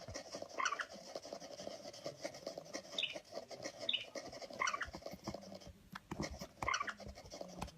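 Several short, high squeaks from a small animal, spread over a few seconds, with light scratching and tapping.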